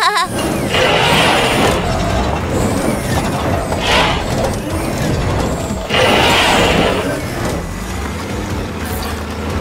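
Cartoon vehicle sound effects of a large wheeled excavator machine driving: an engine hum with mechanical clanking that surges about one, four and six seconds in, over background music.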